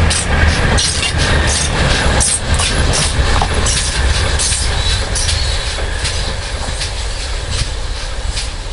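A train rolling past on the rails: a heavy low rumble with a rapid run of wheel clicks over the rail joints, fading away toward the end.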